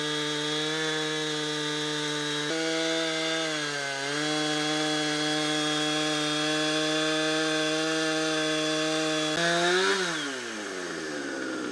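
Chainsaw in an Alaskan chainsaw mill running at full throttle, cutting along a pine log with a steady engine note that sags slightly under load about four seconds in. Near the end the revs jump briefly, then fall away as the throttle is released and the engine drops back toward idle.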